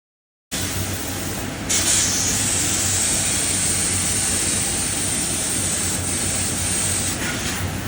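Pratt CNC fiber laser cutting machine running, with a loud, high-pitched hiss of assist gas at the cutting head from about two seconds in until near the end, over a steady low hum.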